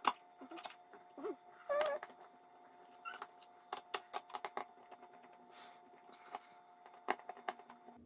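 Irregular light clicks and taps of small screws and a screwdriver being handled against the plastic bottom edge of an all-in-one PC's opened display assembly, over a faint steady hum.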